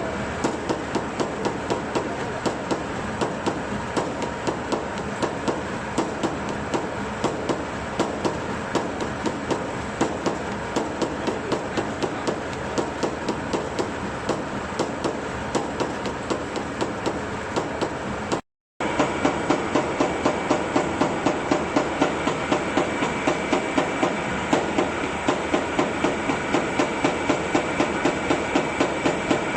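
Sawdust briquette-making machine running, a steady mechanical noise with regular sharp knocks about three times a second. The sound drops out for a moment a little past halfway, and the knocks are a bit louder after it.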